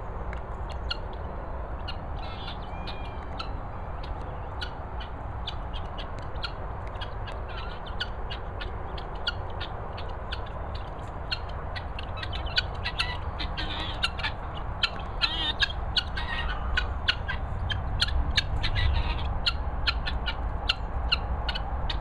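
Helmeted guinea fowl calling with rapid, harsh, clipped notes, over and over, growing busier and louder about halfway through. A steady low rumble runs underneath.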